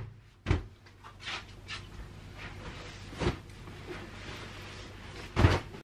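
Pillows being handled and set down on a bed: soft thumps about half a second in, around three seconds in, and a louder one near the end, with fabric swishing in between.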